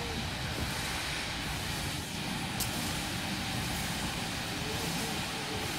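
LB&SCR E4 class 0-6-2 tank steam locomotive moving slowly light engine while shunting, a steady low mechanical rumble.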